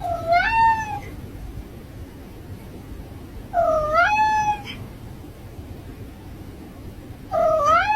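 A domestic cat meowing three times, about three and a half seconds apart. Each meow dips, then rises and is held for about a second, over a low steady rumble.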